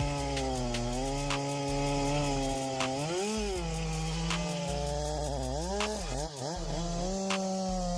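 Two-stroke chainsaw running under load while cutting wood. Its engine pitch dips and comes back up about three seconds in, then wavers several times later on as the chain bites. Sharp clicks recur every second or so.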